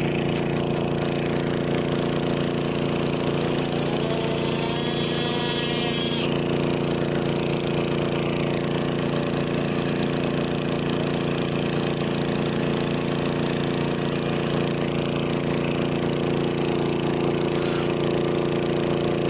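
Pneumatic air knife (windshield cutout tool) running steadily, a hiss over a steady hum, as it cuts the old rubber from the edge of a truck's glass.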